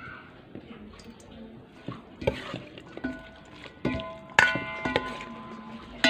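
Food being tossed and mixed with a spoon in a large stainless-steel bowl: soft stirring at first, then clanks of the spoon against the bowl from about two seconds in, each leaving the bowl ringing with the same set of metallic tones, loudest near the end.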